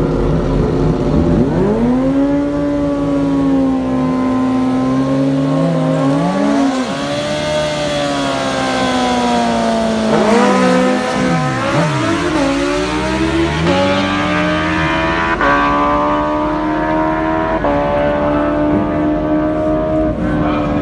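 Suzuki GSX-R sport bike's inline-four engine revved hard and held high during a burnout, dipping and climbing again partway through. Near the end it rises in several short steps as the bike is brought up to the start line.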